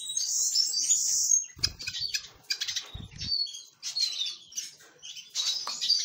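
Canaries and other small finches chirping in several bursts of high, quick tweets and short whistles. Two brief soft low thumps come about a second and a half and three seconds in.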